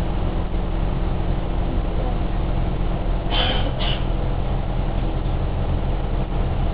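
Steady low rumble of a passenger train heard from inside the carriage as it runs through a station, with two brief higher-pitched sounds a little past the middle.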